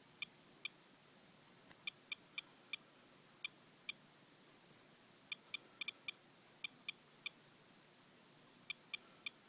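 Handheld radiation detector clicking or chirping at irregular intervals, about nineteen counts in under ten seconds, some in quick pairs and triples. The count is raised, at close to 0.80 microsieverts an hour against a normal background of 0.12, from rainwater wiped off a car with a paper towel.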